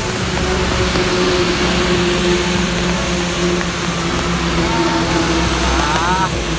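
Steady rushing road noise on a wet road with the low, steady hum of a vehicle engine running. A few short wavering, rising tones come in near the end.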